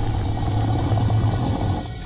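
Steady low rumble of a cartoon magic-portal sound effect, with a slight dip just before the end.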